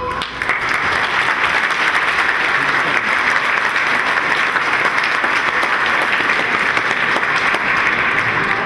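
Audience applauding: dense, steady clapping that starts just after the beginning.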